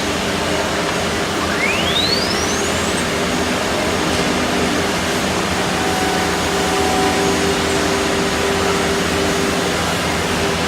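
Heavy-duty CNC wood router running, a loud steady noisy rush with a steady hum and whine underneath. About one and a half seconds in a quick whistle rises sharply in pitch.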